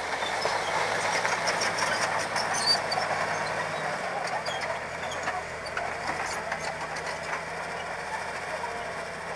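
Caterpillar D7G crawler bulldozer's diesel engine running under load as it uproots a tree, with sharp clicks and cracks through the first few seconds. Its engine note changes about four seconds in as the dozer backs off.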